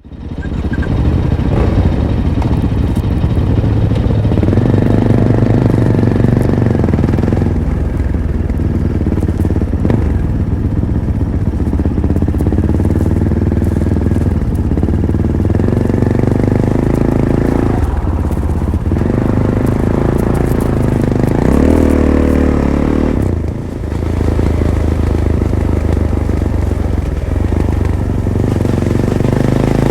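Fantic Caballero 500's single-cylinder engine running through its stock Arrow exhaust while riding, the revs rising and falling, with a short drop in engine sound about three-quarters through.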